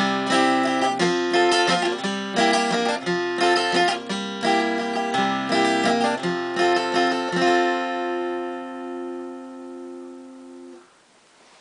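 Steel-string acoustic guitar playing the closing bars of a song's accompaniment, note by note, then ending on a final chord that rings for a few seconds and stops near the end.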